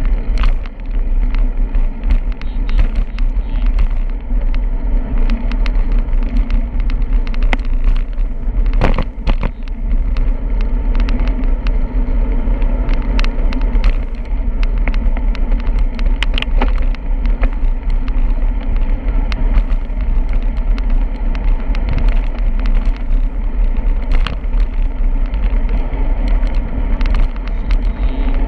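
Riding a bicycle: a steady rush and rumble of wind and road on the microphone, with frequent small rattles and knocks.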